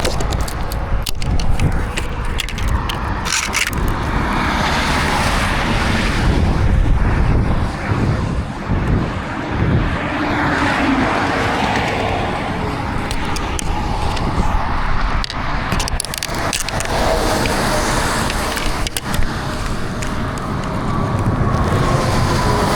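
Steady loud vehicle rumble and rushing noise, with scattered knocks and scrapes throughout.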